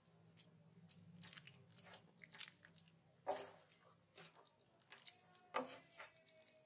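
Wooden spatula stirring thick spinach gravy with paneer cubes in a steel pan: soft, irregular wet squelches and scrapes against the pan, with two louder scrapes about three seconds and five and a half seconds in.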